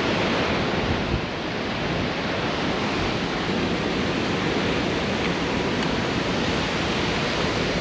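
Steady rush of water pouring over a wide man-made waterfall, an even noise that holds unchanged.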